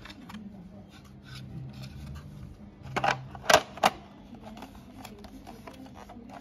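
Hard clacks and knocks as a car stereo head unit's metal casing is handled against its plastic dash mounting frame: three sharp knocks close together about three seconds in, with light rubbing and ticking around them.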